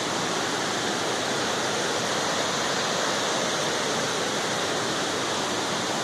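Small waterfall cascades pouring into a pool: a steady, even rush of falling water.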